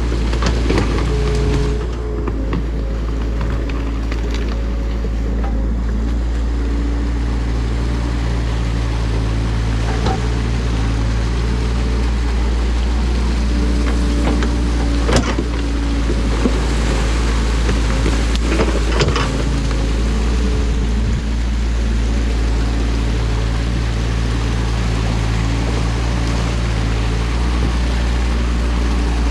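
Excavator's diesel engine running steadily, with a wash of rushing water over it and a few sharp knocks.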